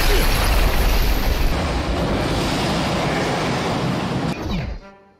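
Loud rushing noise with a deep rumble underneath: action sound effects of crumbling debris and flight from a ride film. It drops away sharply near the end.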